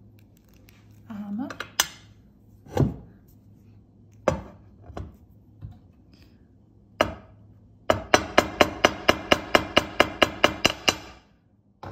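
Hammer striking an 18-gauge wire link on a steel bench block. First come a few single knocks, then a quick even run of about sixteen sharp taps, about five a second, lasting some three seconds. The hammering flattens and stiffens the wire so the link holds its shape.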